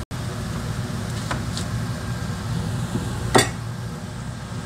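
Steady hum of a kitchen extractor fan, with a few knife strikes on a cutting board while an onion is cut; one sharp, louder chop comes about three and a half seconds in.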